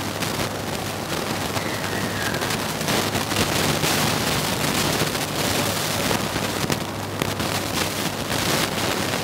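Steady, fairly loud crackling background noise with a low hum underneath.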